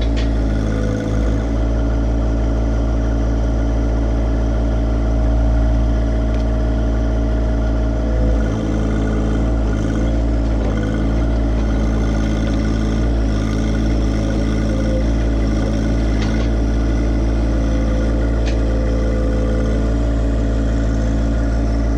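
John Deere 1025R compact tractor's three-cylinder diesel engine running at a steady speed while its front loader raises the pallet forks.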